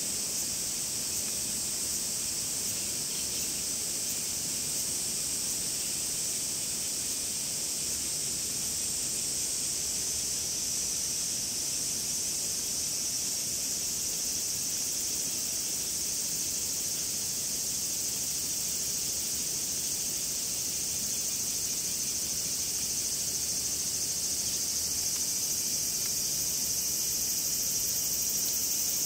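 Cicadas calling in a steady, high-pitched continuous drone, growing slightly louder near the end.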